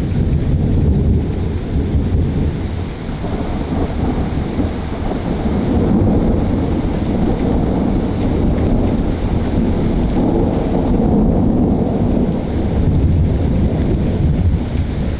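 Thunder rolling continuously in long low rumbles that swell and fade, with rain just starting to fall.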